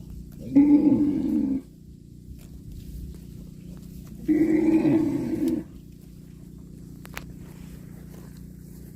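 Cow mooing twice, each call lasting about a second, with a few seconds between them.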